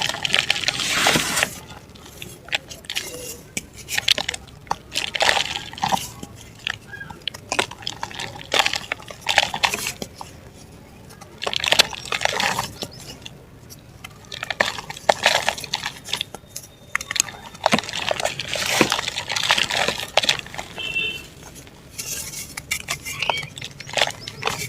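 Chunks of dry mud and black dirt being crumbled and crushed: gritty crackling crunches in irregular bursts with short pauses between them.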